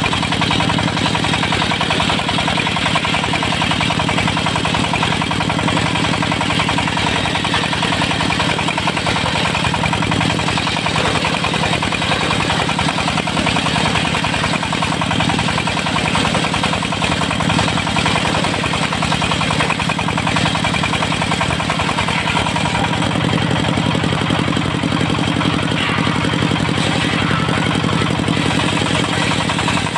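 Diesel-powered circular saw rig running steadily at an even speed.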